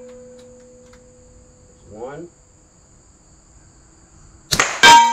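Shot from a PCP-converted Webley Nemesis .22 air pistol about four and a half seconds in, followed a fraction of a second later by a loud clang of the slug hitting a steel gong, which rings on steadily. Before that, the ring of the previous gong hit dies away, and there is a brief pitched sound near two seconds in. Insects keep up a steady high hum underneath.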